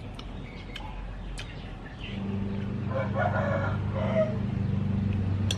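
A rooster crowing once, about three seconds in, over a steady low hum that starts about two seconds in.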